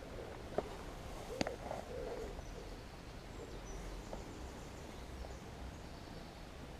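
Faint low, soft bird calls over quiet outdoor background noise, with two small sharp clicks in the first second and a half.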